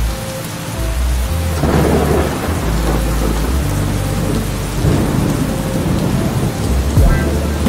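Steady rain falling, with thunder rumbling through it. A long roll of thunder swells about a second and a half in, and further rumbles follow.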